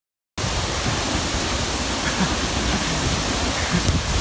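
Waterfall running in heavy flow after heavy rain: a loud, steady roar of falling water that cuts in suddenly about half a second in.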